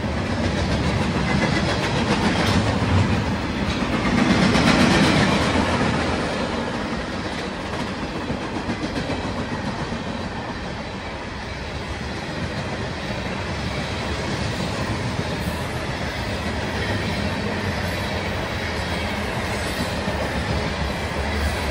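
A long freight train's cars rolling past at speed: a steady rumble and rattle of steel wheels on the rails, swelling loudest a few seconds in.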